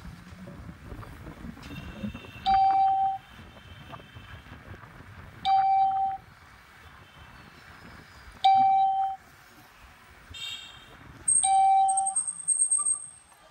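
An electronic beep, a steady mid-pitched tone of about half a second, sounds four times at even intervals of roughly three seconds, over low rumble from riding along the road.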